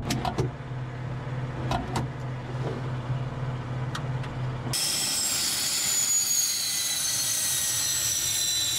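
Inside a Su-25 cockpit, a steady low hum with a few sharp clicks. About five seconds in, the sound cuts to the outside of the Su-25, where its twin jet engines give a high turbine whine of several tones, slowly dropping in pitch.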